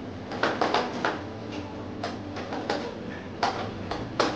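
Irregular light knocks and clicks, about a dozen over a few seconds, as an aluminium glass-partition frame is fitted by hand.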